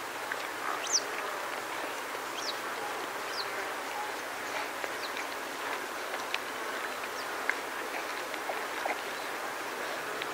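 Wind through long grass as a steady hiss, with small birds flying over and calling in brief, high, down-sweeping chirps, the loudest about a second in. A few soft clicks follow later on.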